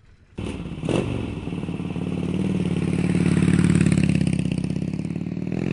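Motorcycle engine coming in abruptly with a sharp crack about a second in, then running and revving: it swells louder in the middle and climbs in pitch near the end.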